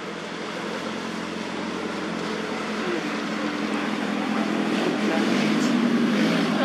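Motor vehicle on a road drawing nearer, its engine hum and tyre noise growing steadily louder.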